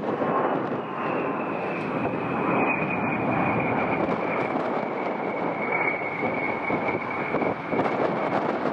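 Fixed-wing aircraft's engines running nearby: a loud steady rush of engine noise with a high whine that slowly drops in pitch as the plane moves past.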